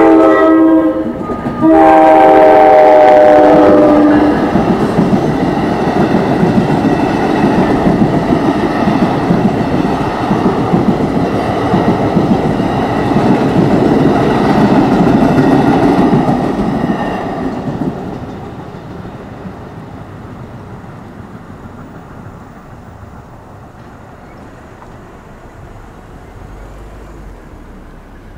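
Train horn sounding a short blast and then a longer one of about two and a half seconds, the end of a grade-crossing warning. Then an NJ Transit bilevel commuter train passes at speed with steady wheel-on-rail noise, which fades away about 18 seconds in.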